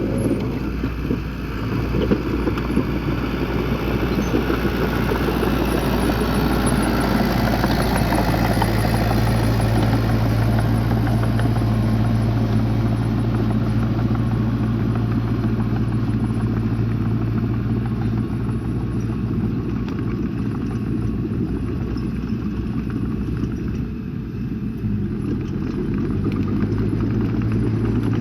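Bulldozer's diesel engine running steadily under work, with a low, even hum.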